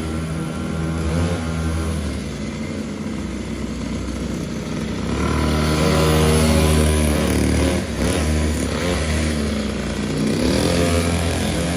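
Mini motorcycle engine running and revving. Its pitch climbs to the loudest point about six seconds in, drops out briefly around eight seconds, then rises again near the end.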